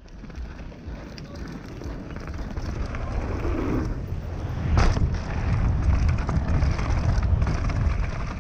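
A downhill mountain bike being ridden down a dirt trail, heard from an action camera: wind rushing over the microphone and the rumble of the tyres and bike over the ground. The noise grows louder over the first few seconds, and there is a sharp knock about five seconds in.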